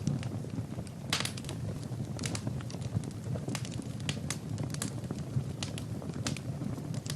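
Wood fire crackling in a fireplace: irregular sharp pops and snaps, several a second, over a low steady rumble of the burning fire. The strongest pop comes about a second in.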